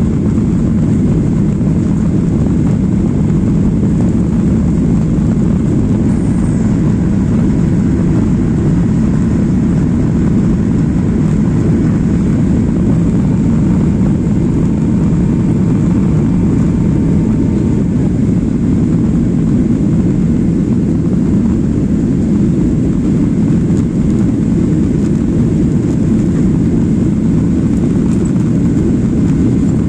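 Steady cabin noise of a jet airliner in flight: an even, low engine and airflow rumble with no change in level.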